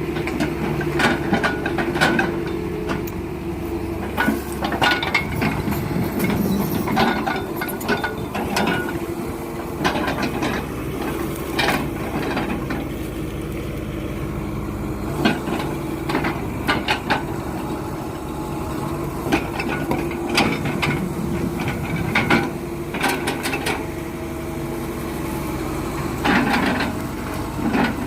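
Hydraulic excavator's diesel engine running steadily under load, with repeated knocks and clatter of rubberwood logs and steel as it lifts and handles the logs.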